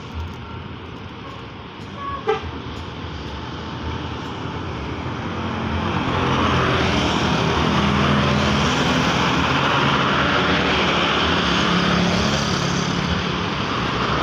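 Road traffic passing close by: cars and motorbikes with engine hum and tyre noise, getting louder from about four seconds and staying loud from about six seconds on. There is a short vehicle-horn toot about two seconds in.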